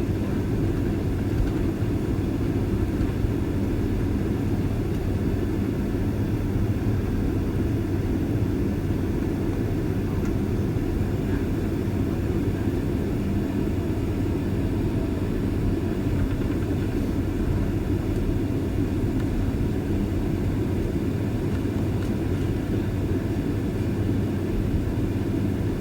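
Boeing 767-300ER jet engines running at low taxi thrust: a steady low rumble with a faint hum, holding level without rising.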